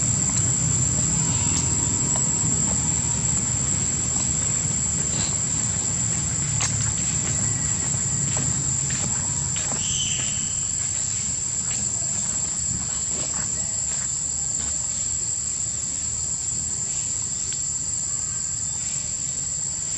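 Insects buzzing in one steady, high-pitched drone, over a low rumble that fades a little. There are a few faint clicks, and a brief chirp about halfway through.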